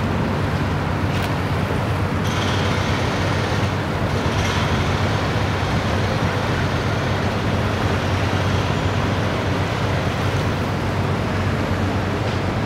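Motor boat's engine running steadily as the boat travels, a constant low hum under an even rush of noise.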